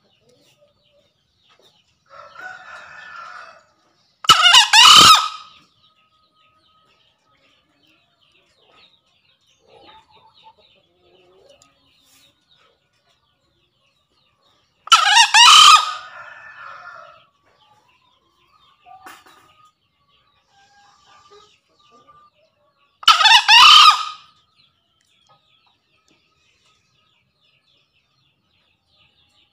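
Male green junglefowl crowing three times, each a short, loud crow about a second long, spaced roughly ten and eight seconds apart: its call challenging a rival male.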